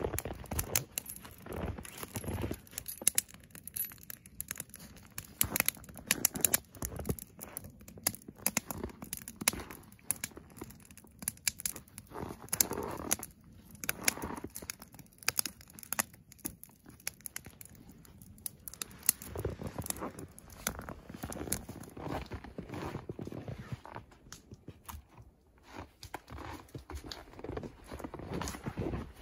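Wood fire crackling and popping in a steel fire barrel, irregular sharp snaps throughout, mixed with footsteps crunching in snow.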